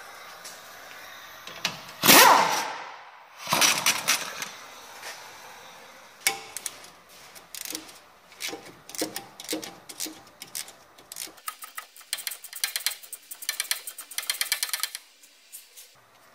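Hand tools at work on a car during suspension repair: a loud burst about two seconds in and another shortly after, then scattered metallic clicks and knocks, and a fast rattling run of clicks near the end, like a ratchet spinning.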